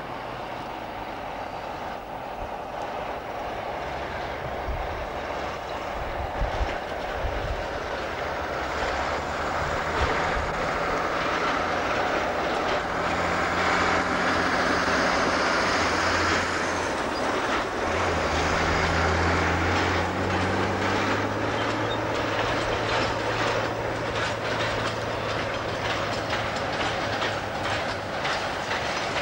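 Class 47 diesel locomotive's twelve-cylinder Sulzer engine running under load as it hauls a freight train past, growing louder to a peak around halfway. In the second half the wagons' wheels clatter over rail joints with a rhythmic clickety-clack.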